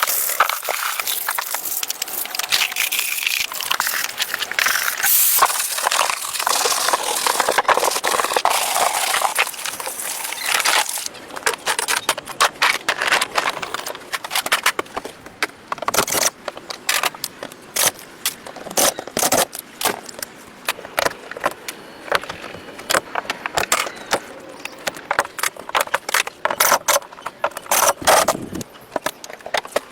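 Rough scraping and rattling for about the first ten seconds, then a long run of sharp, irregular clicks and knocks.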